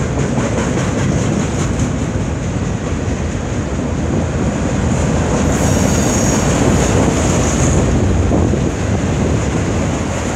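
Freight train cars rolling steadily past on the track, a continuous rumble of wheels on rail with a thin high whine above it that grows stronger for a couple of seconds midway.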